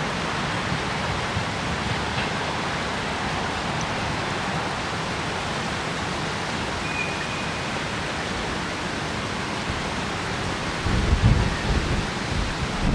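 Steady, even outdoor hiss with no distinct source. From about eleven seconds in, wind gusts buffet the microphone with a low rumbling.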